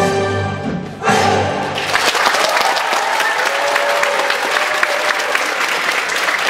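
Dance music ends on a final chord about a second and a half in, and an audience bursts into steady applause.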